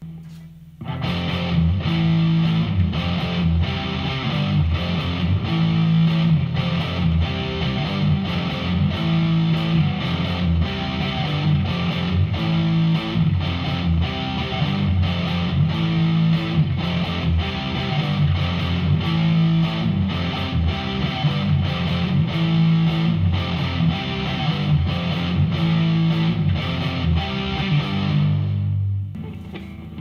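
Electric guitar played through a Behringer V-Amp Pro amp-modelling processor on an overdrive preset: a distorted, repeating riff with a regular rhythm. It starts about a second in and dies away near the end.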